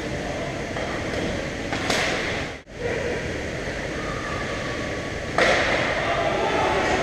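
Steady rumbling and scraping noise of play in an ice rink. It drops out briefly near the middle and gets suddenly louder about five seconds in.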